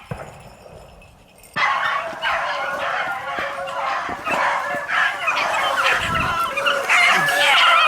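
A pack of beagles baying in full cry, many overlapping voices breaking out together about a second and a half in and going on without a break: the hounds are running a rabbit jumped from the brush pile.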